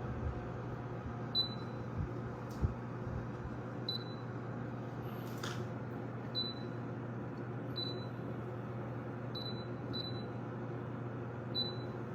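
A bladeless windowless air conditioner running with a steady hum and airflow noise. Short high electronic beeps sound about seven times, every second or two.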